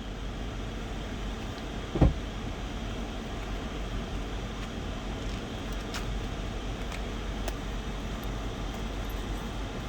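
Steady hum inside the cabin of a 2004 Lexus GX 470 with its 4.7-litre V8 idling while it warms up, the heater blower running. A single thump about two seconds in.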